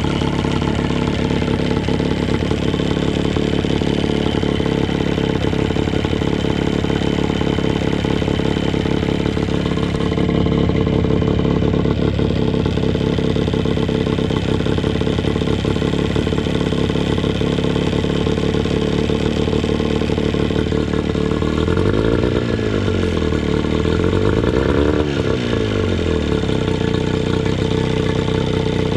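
1978 Johnson 9.9 two-cylinder two-stroke outboard motor running steadily at idle, revved up and back down twice about three quarters of the way through.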